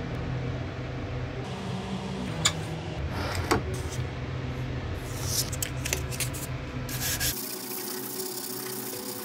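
Steel rubbing and scraping against an abrasive during hand knife sharpening, with a few sharp clicks.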